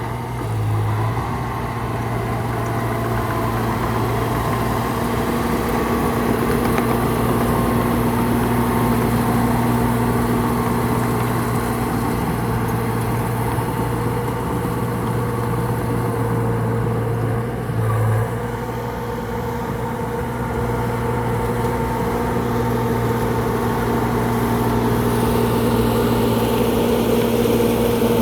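Engine of a working machine running steadily with an even hum, briefly rising in level about a second in and again near 18 seconds.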